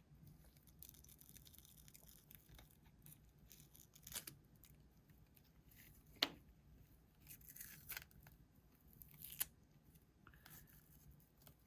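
Faint scraping and tearing of adhesive tape as a Samsung Galaxy S10's back glass is peeled away from the wireless charging coil, with a few sharp clicks and scrapes. The loudest click comes about six seconds in.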